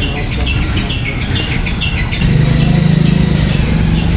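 Birds chirping repeatedly over a low rumble. About two seconds in, a truck engine comes in with a steady low hum as the truck rolls slowly forward.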